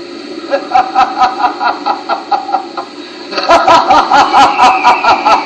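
A man laughing out loud in a rhythmic run of 'ha-ha-ha' bursts, which becomes much louder about three and a half seconds in.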